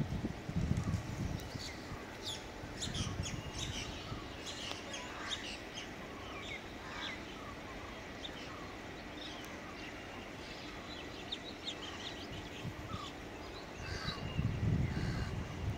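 Birds chirping and calling over steady outdoor background noise, busiest in the first half, with a low rumble rising near the end.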